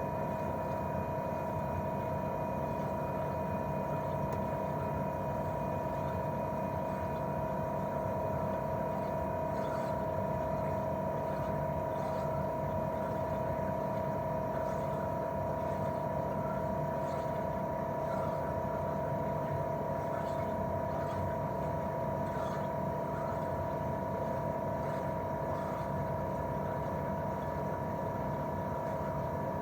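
Daikin R28RMV mini-split outdoor unit running steadily in cooling, its propeller fan and twin-cylinder swing compressor giving an even hum with two clear steady tones over a soft rushing noise.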